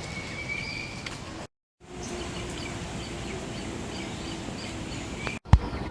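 Faint, high bird chirps over steady background noise, broken by a brief dropout about a second and a half in.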